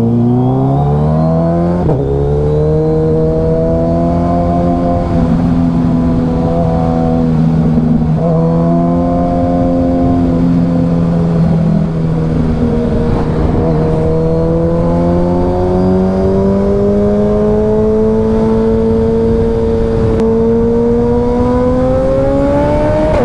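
Suzuki Hayabusa inline-four engine through a Brock's Alien Head aftermarket exhaust, accelerating under load. The revs climb steeply, drop at an upshift about two seconds in, dip a few more times, then rise slowly and steadily until another upshift at the end.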